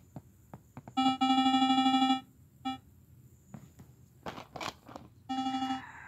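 Electronic synthesizer tone from a Scratch animation trailer, played through a device's speaker: a steady buzzy note held for about a second, a short blip, then the note again briefly near the end. A few brief scratchy noises come between the notes.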